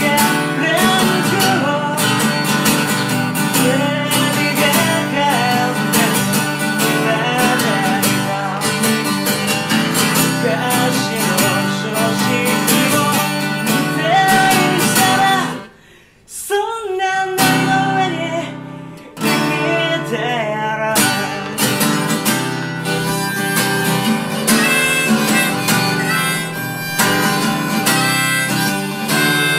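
Live acoustic guitar strumming under a harmonica playing held, bending notes. The music stops abruptly about halfway through for a second or so, then picks up again.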